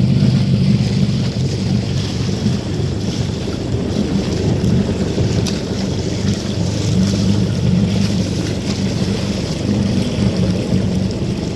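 Steady wind noise buffeting the microphone, with water rushing and splashing around a Laser Pico sailing dinghy under way.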